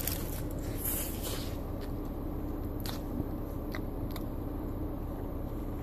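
A man chewing a mouthful of burger, with a few faint short crunches, over a steady low hum.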